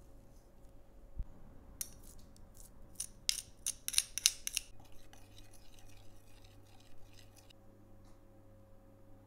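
Metal spoon scraping pressed garlic off a stainless garlic press: a quick run of sharp metallic scrapes and clicks about two to five seconds in. Softer scraping follows for a couple of seconds.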